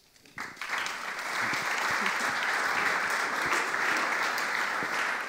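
Audience applauding by hand, starting about half a second in and holding steady.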